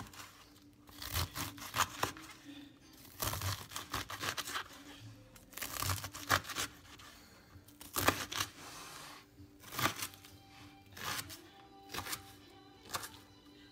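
Chef's knife chopping through boiled cabbage leaves onto a plastic cutting board, in irregular runs of quick chops with brief pauses between.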